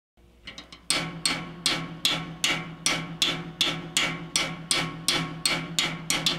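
Music: a sharp percussive tap, wood-block-like, repeating at a steady beat of about three a second over a low held tone. It begins with a few soft taps and comes in loud about a second in.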